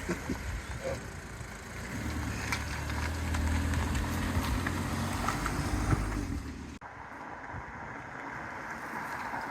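Audi TT's engine running, a steady low engine note that cuts off abruptly about two-thirds of the way through. After it comes a plain hiss of wind on the microphone.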